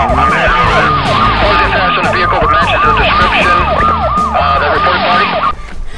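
Police siren in a fast yelp: a tone that falls sharply and repeats about three times a second, cutting off suddenly near the end.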